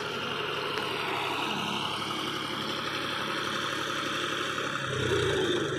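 John Deere tractor's diesel engine running steadily while pulling a trailer loaded with soil through loose dirt, getting louder and deeper about five seconds in.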